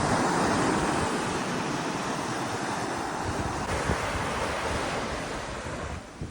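Waves washing against the shore, with wind buffeting the microphone; the noise eases off near the end.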